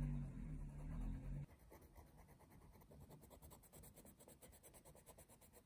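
Coloured pencil scratching on paper in quick, short shading strokes. A low hum sounds for about the first second and a half and cuts off abruptly.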